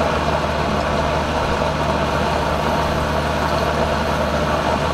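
Steady, loud mechanical drone of a running motor, with a constant low hum and no change in pitch or level.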